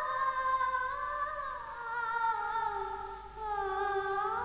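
Background music of a slow, wordless hummed melody on long held notes that drift gradually lower and rise again near the end.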